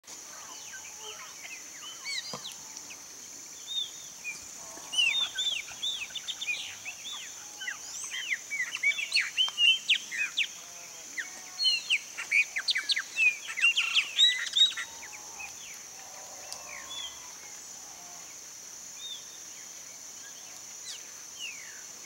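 Chopi blackbirds singing: a run of loud, liquid whistled notes that sweep up and down, densest from about five to fifteen seconds in, then thinning out, over a steady high hiss.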